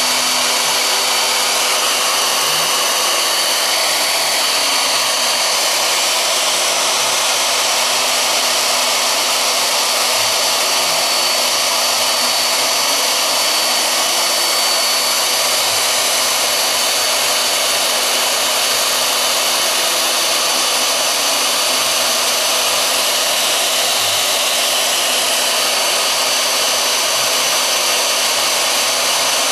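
Small CNC milling machine cutting HDPE: its spindle motor runs with a steady high whine over a constant hum. Fainter tones rise and fall underneath as the machine moves through the cut.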